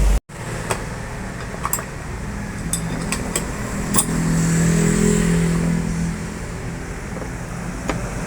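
A motor vehicle's engine running, its pitch swelling up and easing off around the middle, with a few sharp metallic clicks and clinks scattered through it.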